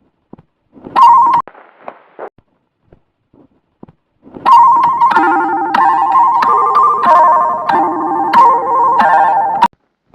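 Electronic ringtone-style melody: a short beep about a second in, then from about four and a half seconds a run of steady beeping notes stepping up and down in pitch, which cuts off suddenly near the end.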